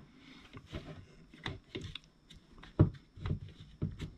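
Irregular clicks and knocks of a TACKLIFE DRS01A reciprocating saw's tool-free blade clamp being twisted open while a saw blade is worked into it, with one sharper knock near the middle.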